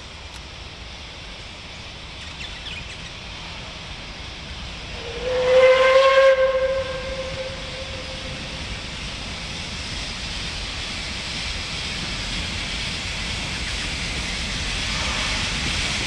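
Steam whistle of Puffing Billy's narrow-gauge steam locomotive 8A sounding one blast about five seconds in, lasting a second or two. Under it the approaching train's noise grows steadily louder toward the end.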